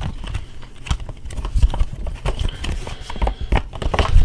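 Contents of a trading card theme deck box being handled close to the microphone: irregular knocks, taps and rustles, some with a dull low thud.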